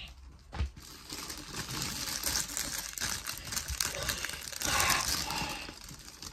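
Plastic wrapper of a trading-card packet crinkling and rustling as it is handled and opened, with a louder burst of crackling near five seconds in. A short dull thump about half a second in.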